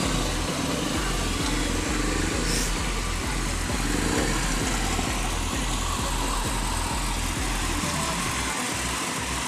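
Several motorcycle engines idling and running at low speed together, a steady mixed rumble.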